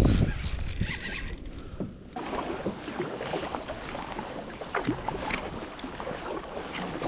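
Water splashing and lapping against a kayak's hull, with short knocks and splashes throughout. Heavy wind buffets the microphone at the very start.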